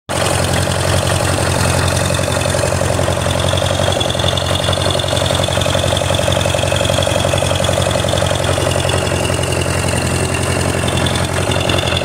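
Old farm tractor's engine running steadily at an even speed.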